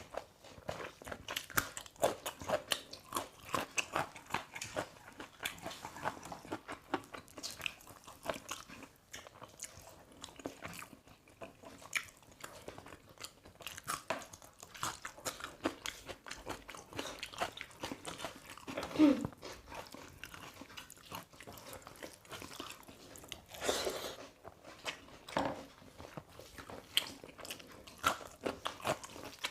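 Close-up eating sounds of chicken being chewed: a steady run of wet mouth clicks, smacks and small crunches.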